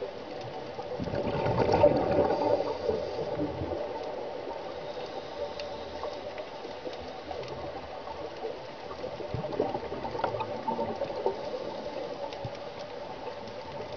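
Scuba divers' exhaled regulator bubbles gurgling, heard underwater. A louder surge of bubbles swells and fades about one to three seconds in, and a smaller one comes near ten seconds.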